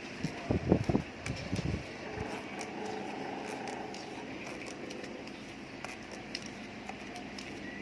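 Handling noise from working on a scooter's wiring harness: a few short knocks and rustles between about half a second and two seconds in, then scattered light clicks over a steady background hum.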